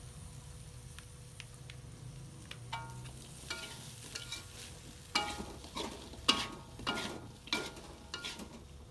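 A metal utensil clinking and scraping against a pan as food is stirred and fried, each knock ringing briefly. The knocks get louder and come about twice a second from about halfway through.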